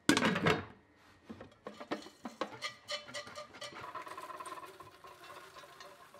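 A brief loud rattle of the pot at the start, then popped popcorn tumbling out of the pot into a stainless steel bowl: a dense patter of light kernels against the metal that thins out near the end.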